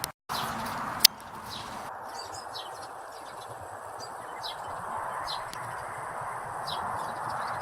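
A small bird chirping over steady background noise: short high notes that fall in pitch, repeated every half second to a second. A single sharp click comes about a second in.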